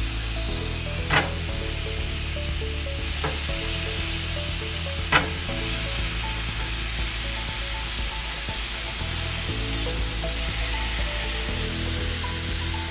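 Seasoned fish pieces sizzling on a hot gas grill as they are laid on the grate, under background music. A few sharp taps stand out, the loudest about five seconds in.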